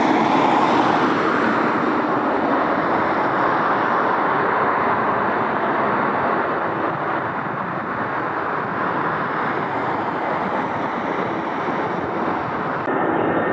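Jet airliner engine noise: a steady rush, loudest at the start and slowly fading. There is an abrupt change near the end.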